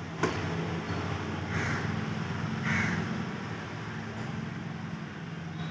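A bird calls twice, two short calls about a second apart, over a steady low hum, with a sharp click just after the start.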